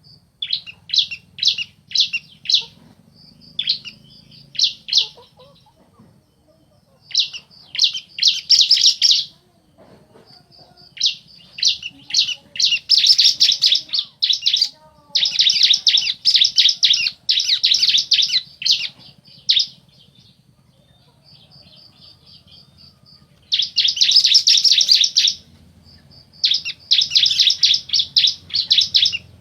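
Bar-winged prinias (ciblek), male and female, calling back and forth: loud bursts of fast, high chirping notes with short pauses between them, and a thin, rapid ticking trill in the gaps.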